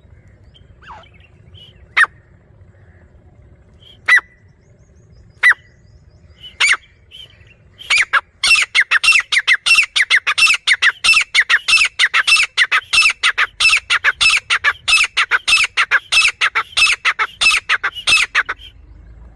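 Grey francolin calling: a few loud, high single calls spaced a second or two apart, then a fast run of repeated calls at about four a second that stops shortly before the end.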